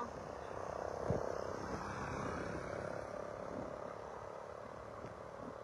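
Gusty tropical-storm wind, a steady rumbling hiss heard from a slowly moving car, a little stronger about a second in and easing slowly after.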